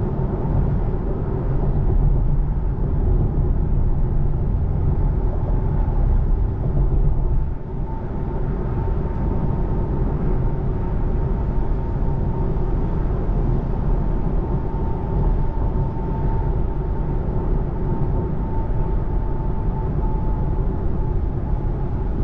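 Steady road and tyre noise of a Tesla Model 3 driving on wet pavement, heard from inside the cabin. A faint steady whine comes in about eight seconds in and drops slightly in pitch near the end.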